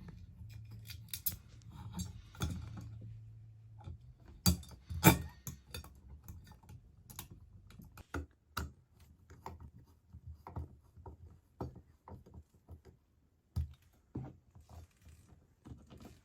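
Ceiling-fan mounting bracket and its screws being handled and fitted by hand: scattered light metal clicks and knocks, two sharper knocks about four and five seconds in, over a low hum in the first few seconds.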